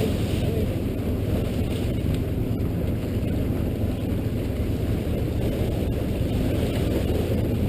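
Steady low rumble of wind buffeting the microphone aboard a boat under way, with a faint steady hum underneath.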